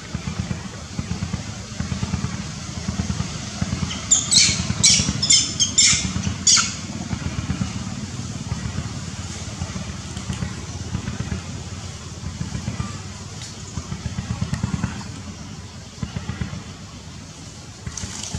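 A young long-tailed macaque gives a run of five short, high-pitched squeals about four seconds in, over a steady low rumble.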